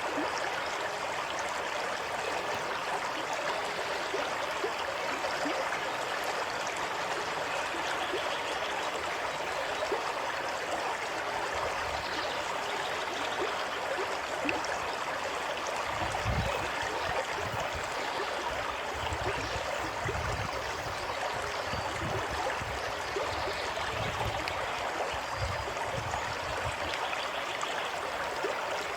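Steady rush of running water. From about halfway through, low muffled thumps and rumbles come and go beneath it.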